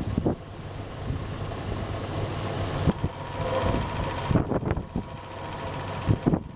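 Car engine idling with a steady low hum, while wind buffets the microphone in uneven gusts and thumps.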